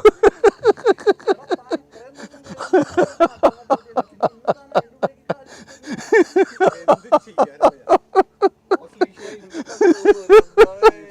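People laughing hard without pause: a long run of quick 'ha-ha' pulses, with voices overlapping at times.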